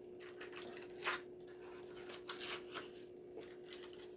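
Cardboard and paper backing of a toy car's blister pack being torn off in a few short, soft rips, about a second in and again around two and a half seconds in. A steady low hum runs underneath.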